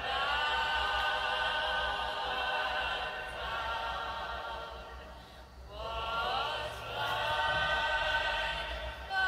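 Background choral music: a choir singing long held notes. It fades briefly a little past halfway, then a new phrase swells in.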